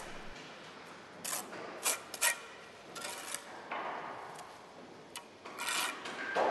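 Bricklaying trowel scraping and tapping against brick and wet mortar in short, irregular strokes, with a few sharp clicks.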